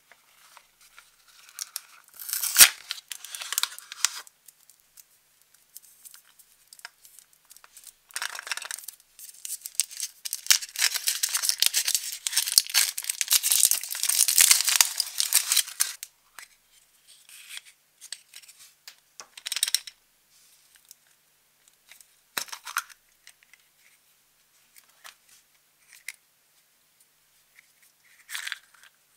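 Cardboard box torn open, then a long stretch of foil wrapper crinkling and tearing as it is peeled off a Furuta chocolate egg. A few short rustles and clicks of a small plastic capsule being handled follow near the end.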